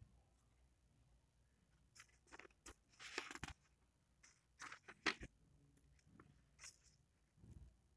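Near silence broken by about a dozen faint, scattered clicks and crackles, the loudest a little after five seconds.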